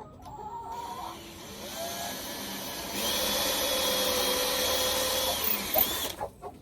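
Cordless drill motor running steadily, stepping up in speed and loudness about three seconds in and winding down near the end. Chickens cluck faintly early on.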